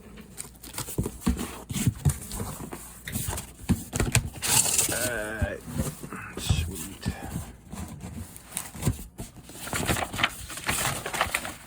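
Handling sounds from a cardboard fireworks case being opened and unpacked: repeated knocks and clicks, with a long scratchy tearing noise about four seconds in.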